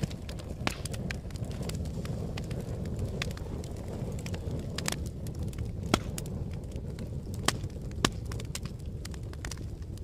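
Fire crackling: a steady low rumble of flames with a constant scatter of sharp pops and snaps, a few louder pops about six and eight seconds in.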